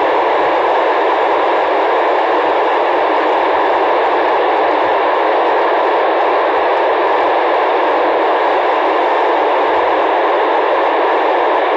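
Steady hiss of FM radio static from a receiver tuned to the PO-101 amateur satellite's downlink, with no voice coming through the repeater.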